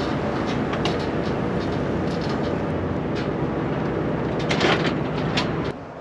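Tractor engine running close by, rattling with scattered clicks and knocks, then stopping abruptly near the end.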